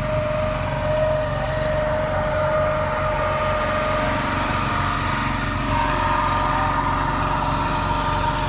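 Small outboard motor on a narrow wooden country boat running steadily at a constant speed as the boat moves through the water.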